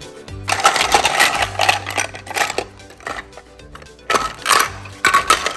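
Small hard plastic toy pieces clattering and rattling, in a long spell and then two short bursts near the end, over background music.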